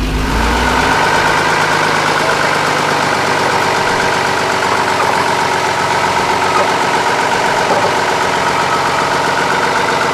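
Mercedes-Benz off-road trial truck's engine idling steadily, with a steady high whine over it.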